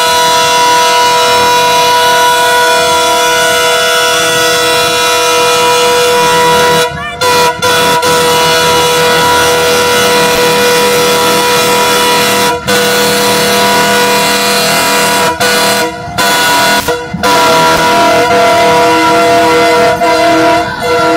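Diesel passenger locomotive's air horn blowing long and loud as the train pulls into the station, a chord of several held notes broken by a few short gaps partway through.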